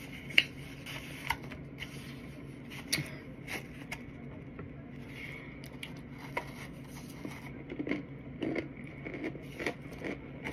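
A plastic fork scraping and clicking against a plate of dry cornstarch, with scattered short crunchy sounds of eating, over a faint steady hum.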